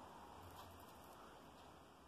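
Near silence: room tone, with a few faint handling sounds from small earrings and a jewellery box being held.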